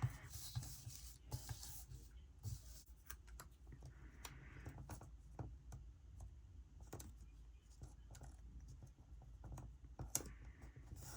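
Faint, scattered clicks and paper rustling from sticker sheets being handled and sorted through.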